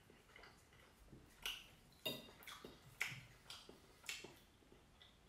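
Knife and fork clinking and scraping against a plate, a handful of sharp separate clinks with a short metallic ring, the loudest around the middle.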